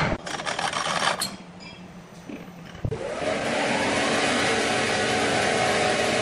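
A few knocks and clanks, then from about halfway a large horizontal band saw mill running: steady machine noise with a whine that rises in pitch, then holds.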